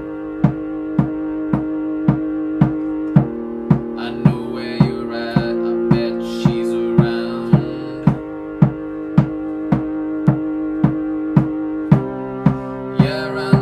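Electronic keyboard playing sustained chords over a steady drum beat, about two beats a second, with the chord changing roughly every four seconds.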